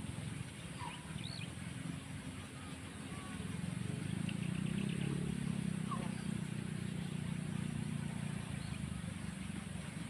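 Open-air ambience: a steady low rumble that swells from about three and a half seconds in and eases near the end, with a few scattered bird chirps and a short rapid trill about five seconds in.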